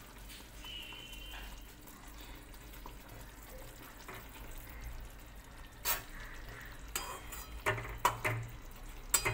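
A metal spatula clinking against a steel kadai several times in the second half, as fried fish pieces are laid into simmering mustard gravy. Beneath it a faint steady hum and light hiss.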